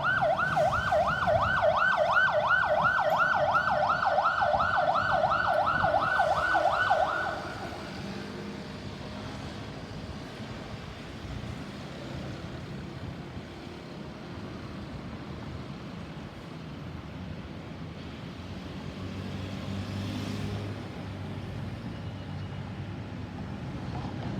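Ambulance's electronic siren on a fast yelp, a rapid rising-and-falling wail of about three to four sweeps a second. It cuts off abruptly about seven seconds in, leaving steady road traffic noise.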